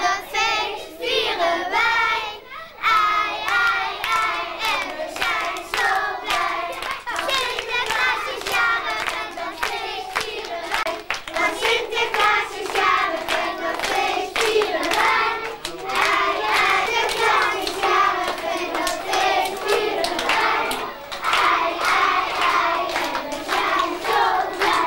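A group of young children singing a song together, clapping their hands along to the beat.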